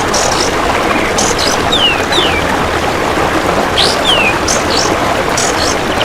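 Steady running-water noise with a songbird's short, sharp whistled notes over it: several quick falling slurs and brief high strokes, spaced every second or so.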